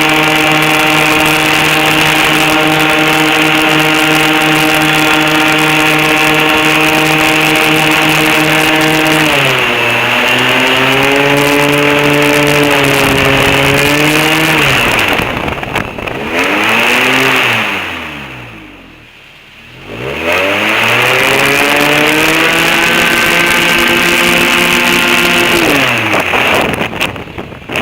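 Airboat engine and propeller running steadily at high revs, then easing off about a third of the way in. The engine then drops to low revs and goes much quieter before revving back up, and is throttled back again near the end.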